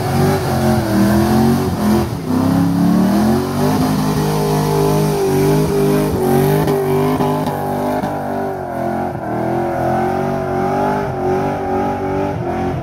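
A car engine revving hard. It drops and climbs again in the first few seconds, then is held at high revs with a wavering pitch.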